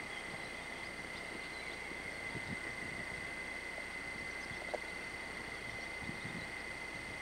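Steady background hiss with a faint, constant high-pitched tone running through it, broken by a few soft low bumps and one small click about two-thirds of the way through, typical of a camcorder being handled while it pans.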